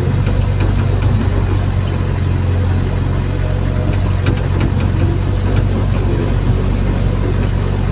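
Hydraulic excavator's diesel engine running steadily, heard from inside the operator's cab, with a few light clicks a little past halfway.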